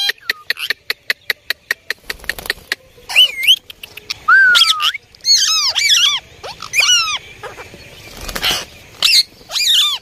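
Indian ringneck parakeets calling: a rapid run of clicks, about seven a second, for the first two seconds, then a string of short, high squawks with bending pitch, several in quick succession.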